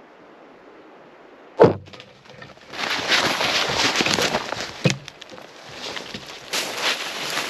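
A sharp thump about a second and a half in, then spruce boughs and brush rustling and scraping against the camera as someone pushes through dense undergrowth over moss, with another thump near the middle.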